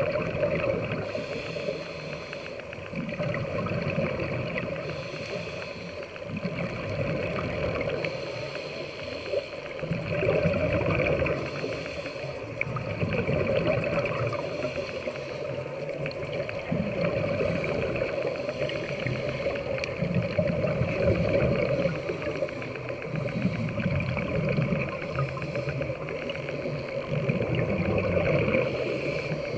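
Muffled underwater sound picked up through a camera housing: a steady hum, with a low rumble swelling every two to three seconds.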